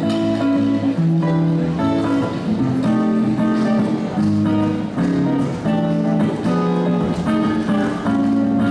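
A guitar playing live, plucked and strummed chords and notes that change about every half second to a second.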